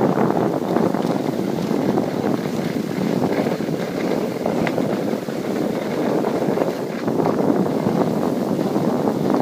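Wind rushing over the microphone of a camera carried by a skier on the move, mixed with the steady hiss and scrape of skis sliding on packed snow.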